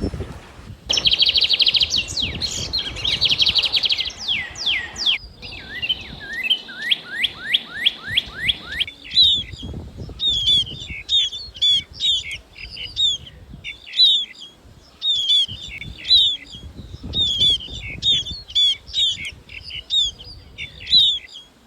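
Small birds singing: fast trilled phrases first, then a series of quick downward-sweeping whistles, then short sharp chirps repeated a few times a second, with a faint low rumble underneath. The song changes abruptly about a second in and again about five seconds in.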